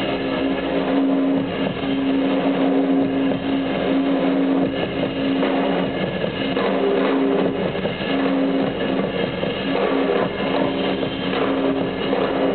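Live band playing: drum kit and guitar over a steady held note.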